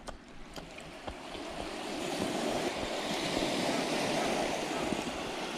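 A sea wave washing up a pebble beach: a hiss that swells over a couple of seconds and slowly eases off.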